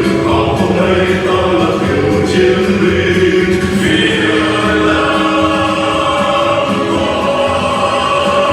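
Choir singing a march song, with long held notes.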